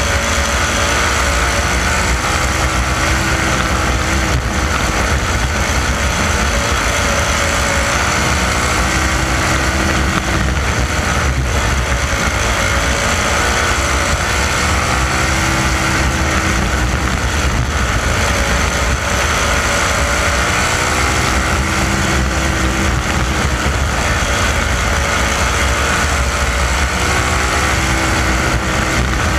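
360 sprint car's V8 engine heard onboard at racing speed on a dirt oval, running hard with its note rising and falling repeatedly as the throttle comes on and off through the turns.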